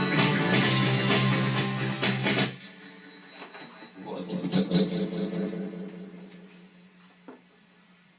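The end of a guitar-backed rock song: the full music stops abruptly about two and a half seconds in, leaving a low ringing note that fades away over the next few seconds. A thin steady high whistle-like tone runs through it all.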